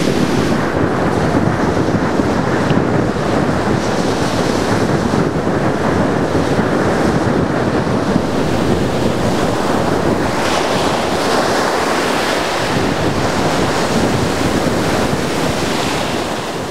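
Ocean surf breaking and washing up a sandy beach, with wind blowing across the microphone in a steady rushing noise.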